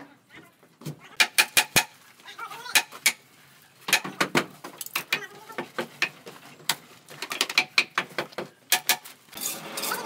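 Construction work: short clusters of quick, sharp clicks and knocks, several strikes at a time, recurring every second or so with quieter gaps between.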